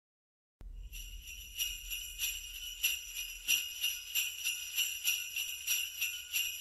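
Sleigh bells shaken in a steady rhythm, a little under two shakes a second, starting about half a second in.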